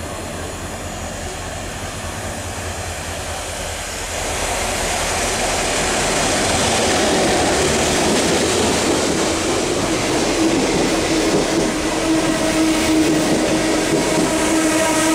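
MTR diesel locomotive No. 59, an EMD G16, passes through the station without stopping, hauling 25T passenger coaches. A low steady hum swells from about four seconds in into a loud rush of engine and wheel noise as the locomotive comes alongside. A steady tone joins the rush near the end as the coaches run past.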